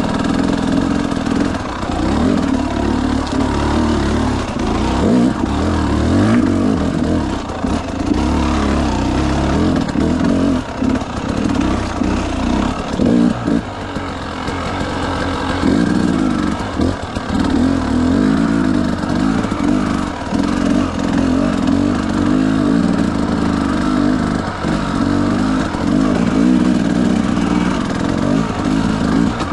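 Dirt bike engine running under way, the throttle opening and closing with the pitch rising and falling, and several short dips as it comes off the gas.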